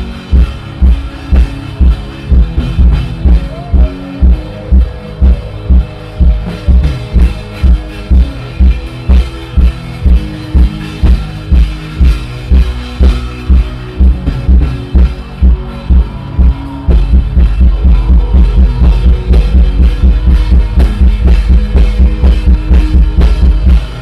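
Background music with a heavy, steady bass beat about twice a second under held chords; about seventeen seconds in, the beat turns faster and denser.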